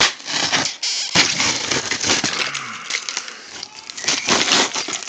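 Irregular crinkling and crackling with scattered knocks: something being handled, in the way packaging or wrapping rustles.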